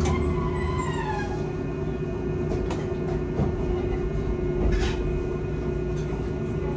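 A Hankai Tramway streetcar coming to a halt: a falling whine dies away over the first second or so as it stops, then the standing tram's steady hum carries on, with a couple of short clicks.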